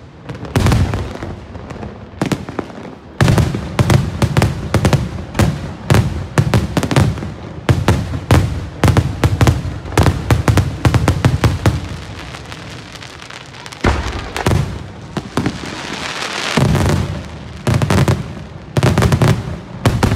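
Daytime fireworks display: rapid volleys of sharp bangs and crackling as aerial shells burst into coloured smoke. The bangs come thickest through the middle and again near the end, with a thinner spell between.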